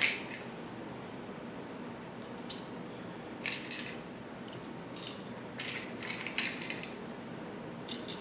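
Small parts being handled: light clicks and rattles as M3×10 screws and 3D-printed plastic pieces are picked up and fitted together, in scattered short bursts over a faint steady hiss.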